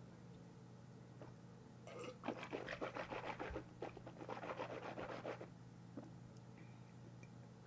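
A rapid rasping, scratching sound in two runs of quick strokes lasting about three and a half seconds together, over a steady low hum.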